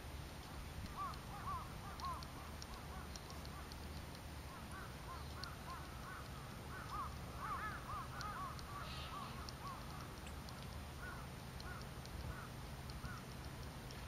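Oriental greenfinch twittering softly: a long run of short chirping notes, thickest about halfway through, over a low steady rumble.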